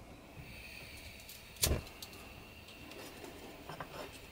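Small handling clicks and a faint hiss as the burner of a model Stirling hot-air engine is lit, with one sharp click about a second and a half in and a few lighter clicks near the end.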